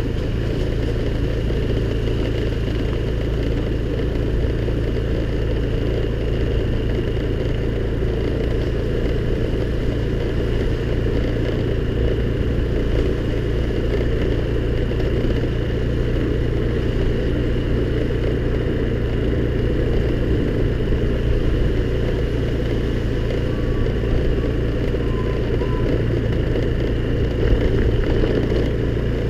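Honda scooter's small engine running at a steady pace while being ridden, with a constant low rumble of engine and riding noise.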